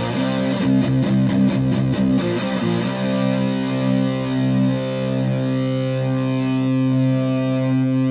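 Electric guitar through a Tone Bender MkI-type fuzz pedal with a filter, into a Fender Twin Reverb-style amp: heavily fuzzed, a quick run of changing notes for about three seconds, then a chord held and sustaining.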